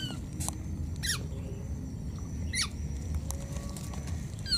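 Baby macaque giving short, high-pitched squeaking calls, about four of them, two sweeping sharply downward. These are the calls of an infant separated from its mother, calling for her.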